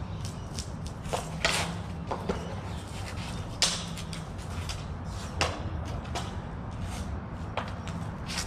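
Sharp clacks of practice blades meeting in slow blade sparring, several separate strikes with the loudest about halfway through, over a steady low hum.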